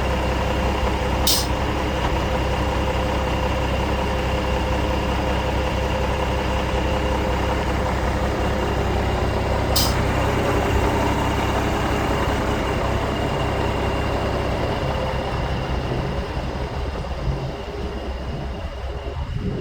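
Freightliner truck's diesel engine running steadily, with two brief high hisses, one about a second in and one near the middle, and the sound easing a little near the end.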